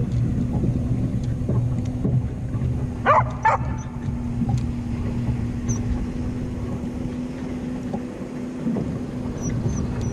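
A dog barks twice in quick succession about three seconds in, over a steady low hum.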